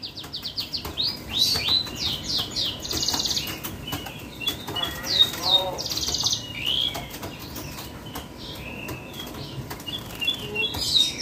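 Caged songbirds singing loudly: runs of rapid high whistled notes mixed with harsh buzzy trills that recur every few seconds, and a short lower warbling phrase about five seconds in.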